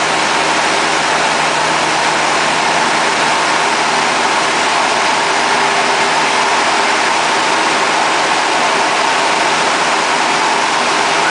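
Cabin noise of a light aircraft in flight: engine and propeller running steadily under a constant rush of air, heard from inside the cockpit.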